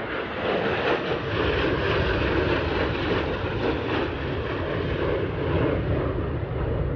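Jet noise of a formation of Thunderbirds F-16 fighter jets flying past: a steady rushing rumble that swells slightly about a second in.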